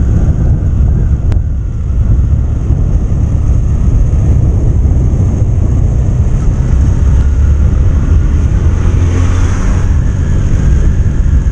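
Motorcycle riding along at speed: the engine runs steadily under a heavy low rumble of wind rushing over the microphone.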